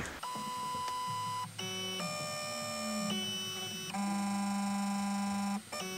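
Shapeoko Pro CNC router's stepper motors whining through its automatic probing routine on the BitZero probe: a few separate moves, each a steady whine at its own pitch, with brief stops between them about a second and a half and five and a half seconds in.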